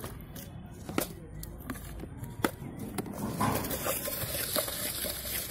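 A spoon clicking and scraping against a plastic mug as puffed rice is stirred: a few separate sharp clicks, then a quick run of clatter from about three seconds in.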